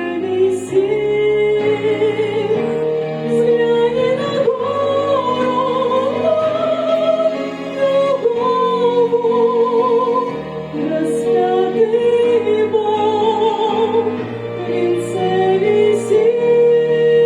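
Slow Russian Christian song: a singer holding long notes with vibrato over a sustained instrumental accompaniment.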